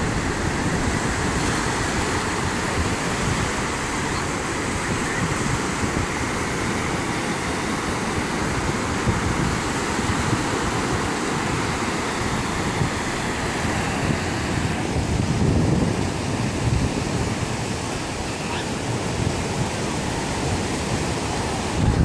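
Ocean surf breaking and washing up the beach in a steady rush, with wind rumbling on the microphone in gusts, strongest about fifteen seconds in and again at the end.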